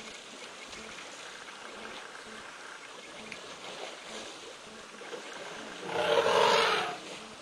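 Water splashing in a burst lasting about a second near the end as a baby elephant moves in a muddy waterhole, over a faint steady outdoor hiss.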